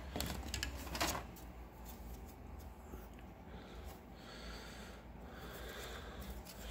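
Plastic miniature sprues being handled: a light click about a second in, then soft rubbing and rustling of plastic.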